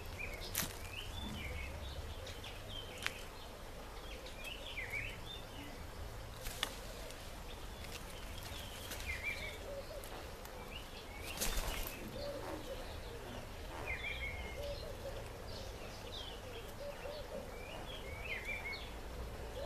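Birds chirping in a garden: short, scattered high chirps over a steady low background rumble, with a few sharp clicks between them.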